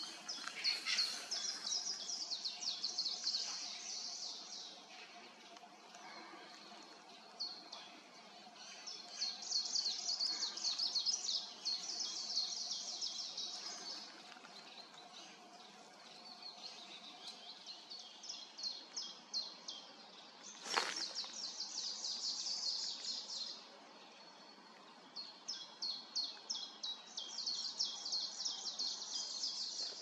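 Common chiffchaff singing: phrases of quick, high, short notes that run for a few seconds and then pause, over and over. A single sharp crack about two-thirds of the way through.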